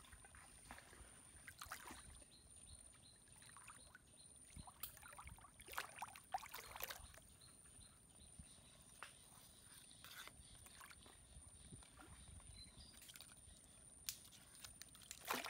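Faint, scattered sloshing and splashing of shallow muddy water as a hand and a long metal crab hook probe the mud, a few soft splashes every couple of seconds.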